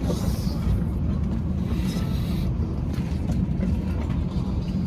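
Steady low rumble of a passenger jet heard from inside the cabin.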